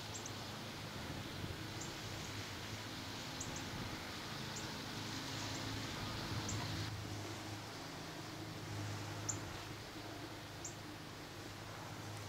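Quiet outdoor ambience: short high chirps every second or two over a low steady hum.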